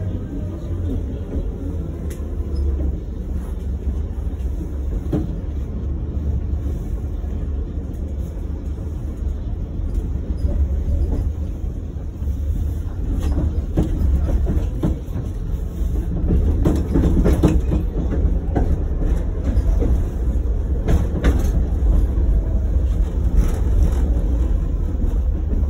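Tatra T6B5SU tram running, heard from inside the passenger saloon: a steady low rumble with scattered clicks and knocks.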